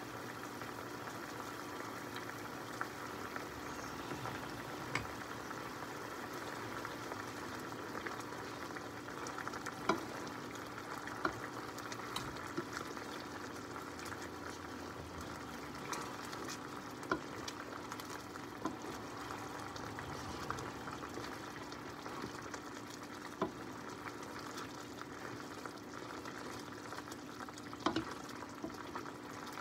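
Mushroom sauce simmering and bubbling in a skillet. A plastic slotted spoon stirs it, with a short click against the pan every few seconds.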